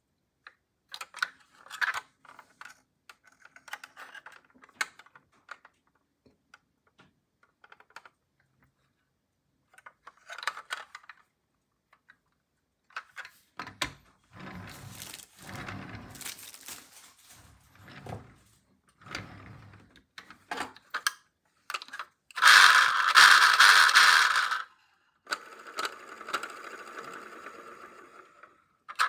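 Handling noises from a 1:24 die-cast model car: scattered clicks and light knocks of its plastic and metal parts as the doors and engine cover are worked, then heavier knocking and scraping against the tabletop. About three-quarters of the way through comes the loudest sound, a rushing scrape lasting about two seconds, followed by a quieter one.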